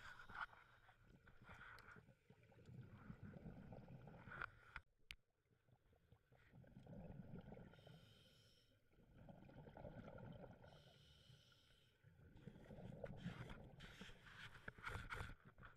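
Faint, muffled scuba breathing heard through an underwater camera housing: slow cycles of regulator exhalation bubbles, each swell lasting a couple of seconds, with a quieter hiss between them.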